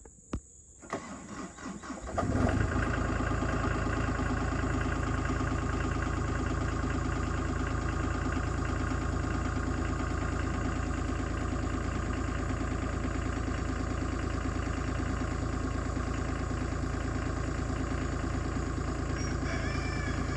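CAT 303C CR mini excavator's diesel engine starting about two seconds in after a few knocks, then idling steadily while it warms up.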